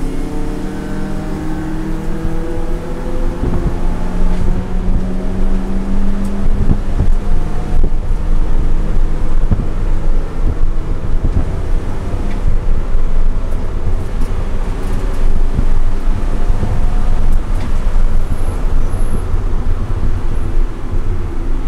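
Heard from inside the cabin, a BMW E90 330i's straight-six engine accelerating hard, its pitch rising over the first several seconds, then running at high revs under loud road and wind noise. A few sharp knocks from the track surface come through.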